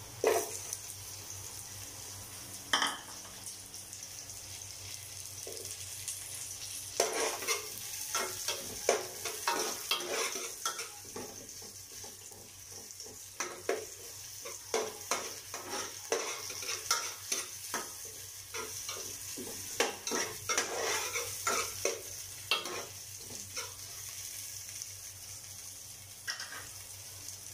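Sliced onion and ginger frying in oil in a stainless steel pot, sizzling steadily, while a ladle stirs them with repeated scrapes and clicks against the pot, thickest through the middle.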